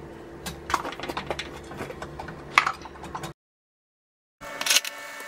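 Small clicks and taps of a spoon against a glass pesto jar and a metal pizza pan while pesto is dabbed onto a pizza. Over a low hum, these break off for about a second of dead silence and then resume over a steadier hum.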